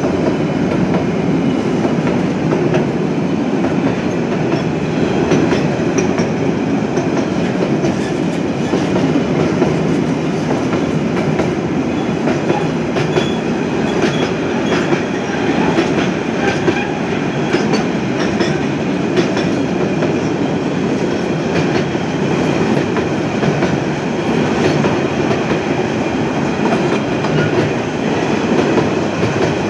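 Mixed freight train's wagons rolling steadily past: a continuous rumble of steel wheels on the rails, with scattered clicks as they run over the rail joints.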